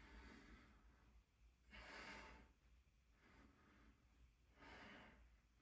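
A man breathing hard between sets of a weight workout, four faint breaths, the strongest about two seconds in.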